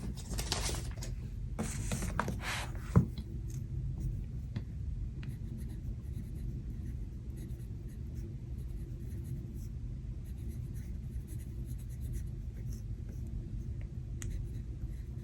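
Paper rustling and rubbing as a sticker is peeled from its sheet and pressed into a Hobonichi Cousin planner, with one sharp tap about three seconds in. After that there is only faint handling over a steady low rumble.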